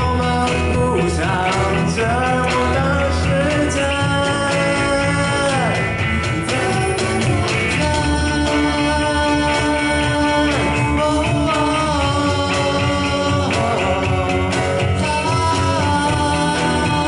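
A band playing a pop-rock song live, with a lead voice singing over guitars and a steady rhythm section.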